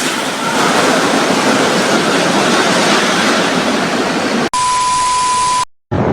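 A steady rushing noise, then about four and a half seconds in a steady single-pitched beep lasting about a second, cut off by a moment of silence.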